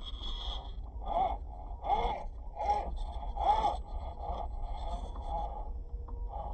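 A series of short vocal sounds, each rising and falling in pitch, about four distinct ones in the first few seconds and weaker ones after.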